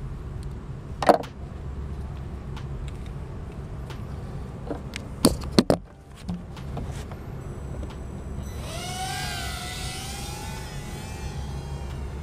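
A steady low rumble with a sharp knock about a second in and a quick cluster of knocks around five seconds in. About eight and a half seconds in, the Eachine X73 micro quadcopter's motors spin up with a high whine that rises in pitch and then wavers.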